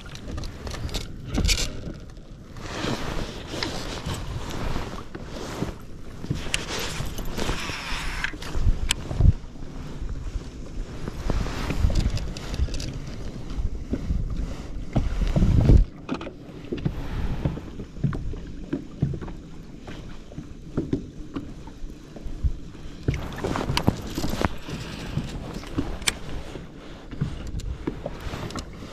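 Water slapping and splashing against a small boat's hull as it moves, in uneven bursts and thumps, with wind buffeting the microphone.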